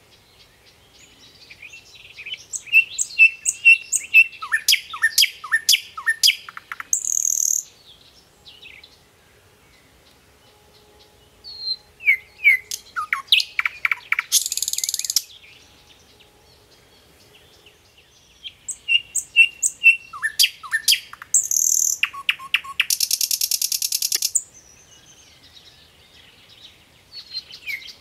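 A songbird singing in long phrases with pauses of a few seconds between them. Each phrase is a run of quick chirps and downward-sweeping notes ending in a harsh, buzzy trill.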